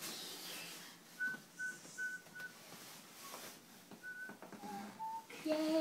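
Soft whistling by a person: four short, quick notes on one pitch, then a few more short notes, the last ones lower.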